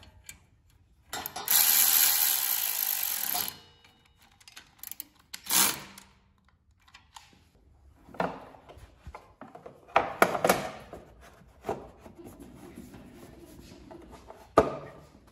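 A loud rushing noise lasting about two seconds near the start. Then scattered knocks, rattles and scrapes as the plastic blower housing of a Kohler KT735 engine is handled and set down over the engine, with a sharp knock near the end.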